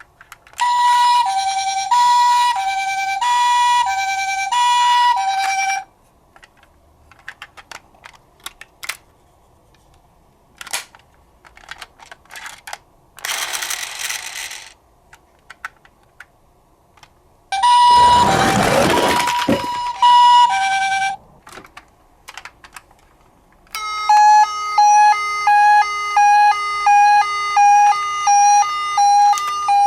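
Toy ambulance minicars' electronic sirens. First a Japanese-style hi-lo 'pee-po' siren alternates between two notes for about five seconds. Then come scattered clicks and rattles, a loud rushing noise with the hi-lo siren again, and in the last several seconds a different electronic siren beeping about twice a second.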